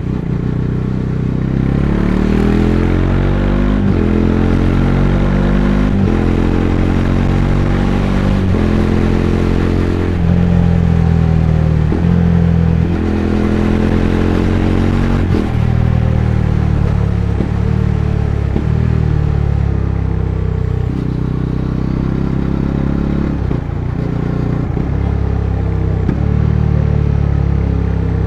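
Bajaj Dominar 400's single-cylinder engine heard from onboard, accelerating through the gears: the engine note climbs, drops briefly at each upshift, then climbs again, over a rush of wind noise.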